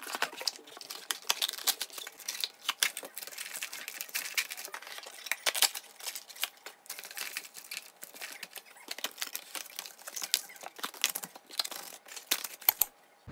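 Packaging being handled: drink pouches and cardboard gift-box inserts rustling and crinkling as they are lifted out and packed into a plastic bin, with irregular light clicks and taps throughout.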